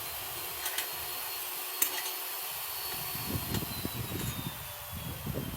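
Wheel-rim repair work: a few sharp metal clicks of tools over a steady hiss, with a faint whine slowly falling in pitch. Irregular low knocks and handling noise start about halfway through.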